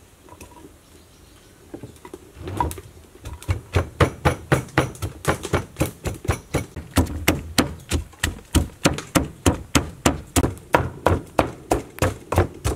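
Wooden pestle pounding garlic and red chili in a mortar to make chili sauce, starting a couple of seconds in and settling into a steady rhythm of about three thuds a second.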